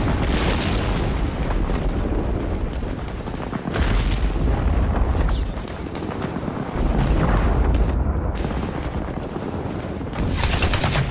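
Artillery shellfire: heavy low booms that come in four big rolling swells, with sharp crackles scattered through them.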